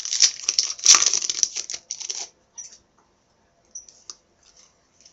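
Crinkling and tearing of a trading-card pack's wrapper as it is ripped open, dense and crackly for about two seconds and loudest about a second in. After that come a few faint clicks as the cards are handled.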